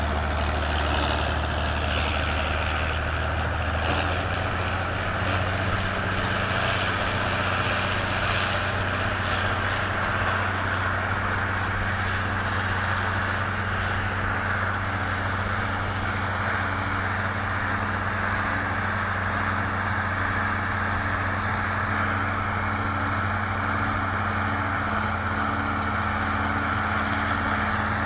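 Large tractor's diesel engine running steadily under load while pulling a plough, its low note shifting slightly about four seconds in.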